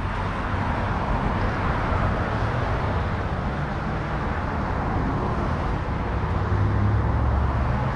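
Steady outdoor road-traffic noise, with a low rumble that swells near the end.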